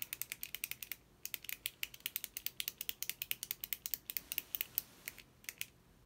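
A retractable click pen being clicked over and over, rapid sharp clicks at roughly eight to ten a second, with a short break about a second in and another near the end.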